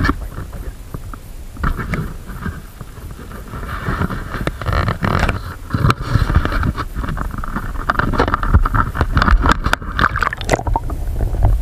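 A hooked fish thrashing and splashing at the surface as it is reeled in beside the boat: rapid crackling and splashing that builds about four seconds in and stops near the end, over low wind rumble on the microphone.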